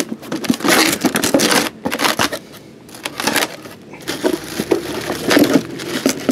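Cardboard box flaps being opened and the plastic bag around a new tail light crinkling and rustling as hands dig into it, in irregular bursts with a short lull about two and a half seconds in.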